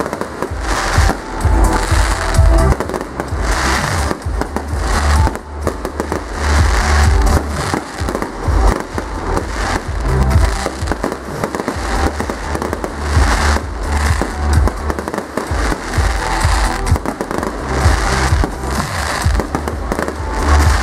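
Aerial fireworks going off in a dense, continuous run of bangs and cracks with deep rumbling booms, over music.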